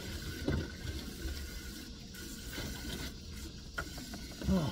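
Water running and splashing, with a couple of low thumps near the end.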